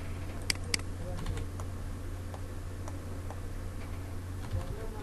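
Computer keyboard and mouse clicks as AutoCAD commands are entered and objects picked: two sharp clicks about half a second in, then a few fainter ones, over a steady low hum.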